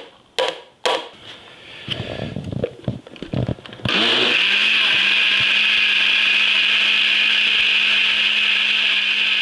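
A few sharp knocks and some clatter as yogurt is spooned into the jar, then a Braun countertop blender starts about four seconds in: its motor pitch climbs briefly and then holds a loud, steady whir as it purées cucumber, yogurt and mint into a cold soup.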